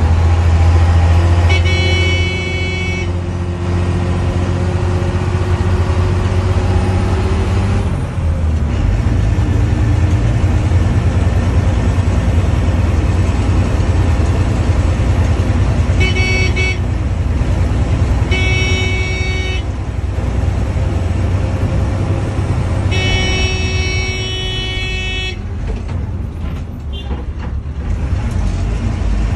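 Bus engine running with a steady low drone while a horn sounds four times: a blast about two seconds in, two shorter toots around the middle, and the longest blast near the end.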